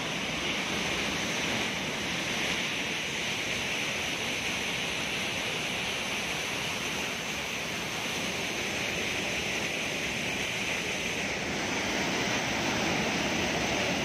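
Waterfall cascading over rock into a pool: a steady, unbroken rush of falling water.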